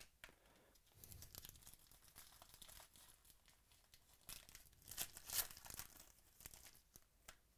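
Foil wrapper of a 2017 Rookies & Stars football card pack being torn open and crinkled by hand, faint and crackling, loudest about five seconds in.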